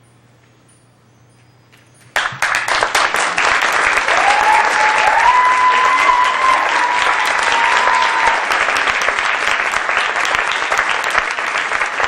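Audience applause breaking out suddenly about two seconds in and carrying on steadily, after a quiet moment with a low room hum. A single cheering voice rises over the clapping for a few seconds.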